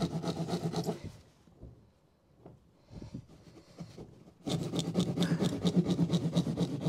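Hand pad saw cutting through plasterboard in quick back-and-forth strokes. The sawing stops for about three seconds a second in, then starts again.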